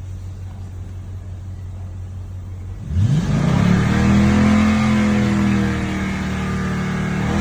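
Toyota Tundra V8 engine idling, then revved hard about three seconds in, its pitch climbing fast, held high and then slowly easing down. It is a free-rev test for an intermittent misfire, during which the scan tool counts one misfire on cylinder 7.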